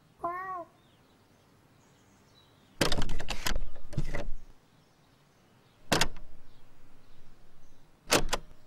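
Cartoon cat sound effects: one short meow, then a door's lever handle rattling and clicking as the cat hangs from it. More clattering follows, with two sharp clicks near the end.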